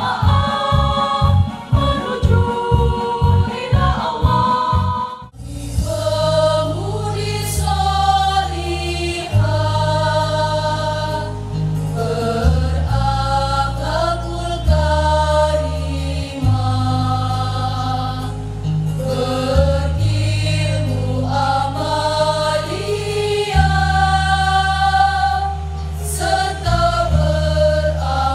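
Women's choir singing into microphones over a low accompaniment. For the first five seconds the bass pulses in a steady beat; after a sudden short break it changes to long held bass notes under the voices.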